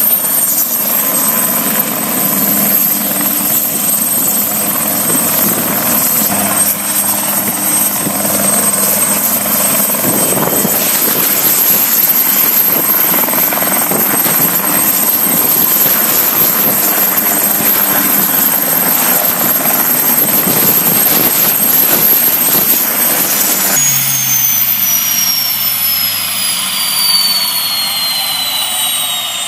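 Ultralight helicopter's engine and rotor running steadily. About 24 seconds in the sound changes abruptly to a high whine that falls steadily in pitch.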